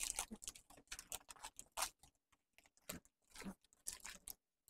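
Bouquet wrapping paper crinkling and rustling in short, irregular crackles as the wrapped bouquet is handled, dying away near the end.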